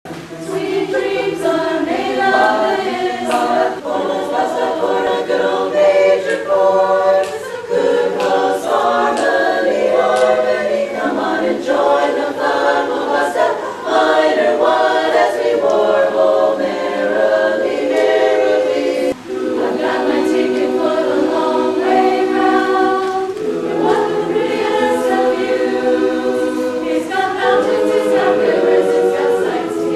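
Women's chorus singing a cappella in barbershop style, holding sustained chords, with a brief break about nineteen seconds in.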